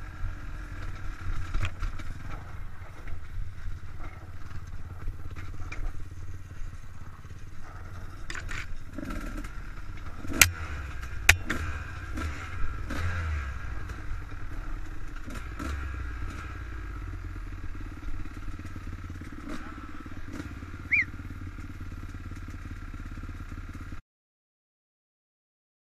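Dirt bike engine running on a rough trail, with the clatter and knocks of the bike over the rough ground, including two sharp loud knocks about halfway through. The sound cuts out suddenly near the end.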